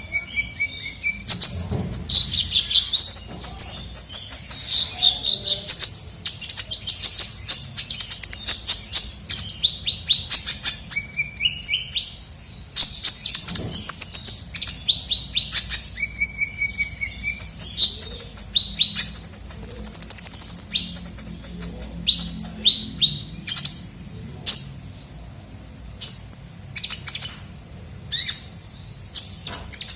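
Kolibri ninja sunbird singing: a fast, busy run of high, thin chirps and twitters with short pauses, and a brief high steady whistle about two-thirds of the way through.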